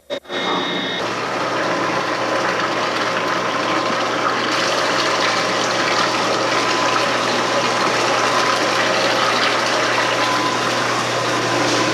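Milking equipment running: a steady mechanical hum with a constant hiss of air and flow, typical of a milking system's vacuum pump at work.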